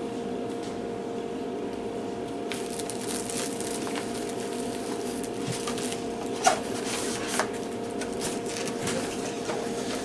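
Light handling sounds from unpacking the subscription box: scattered soft rustles and clicks, with one sharper click about six and a half seconds in, over a steady background hum.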